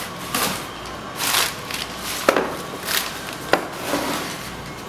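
Unpacking handling noise: a wooden picture frame being handled and set down on a desk, giving a series of short rustles and light knocks, with two sharper taps about two and a quarter and three and a half seconds in.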